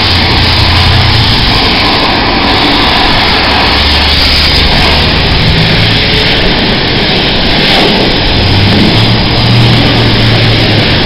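Car-wash pressure-washer wand spraying a high-pressure jet of water onto a scooter and the concrete floor: a loud, steady hiss of spray with a low hum underneath.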